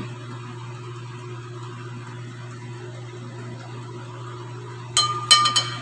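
Steady low hum with faint hiss, then, about five seconds in, a few sharp metallic clinks with a brief ring as metal tongs knock against the air fryer basket while placing chicken pieces.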